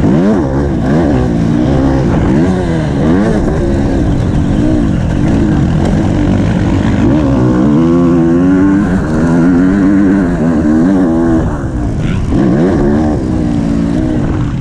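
Motocross bike engine heard close up from on the bike, revving up and dropping back over and over as it is ridden hard around a dirt track.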